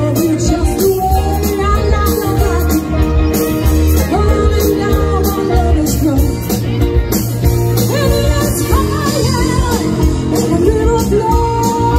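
Live rock band playing: a woman singing lead into a microphone over electric guitars, bass guitar, drums and keyboards.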